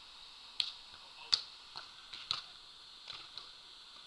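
About half a dozen sharp slaps of hands and forearms hitting a volleyball during play, irregularly spaced, each with a short echo from the large air-dome hall.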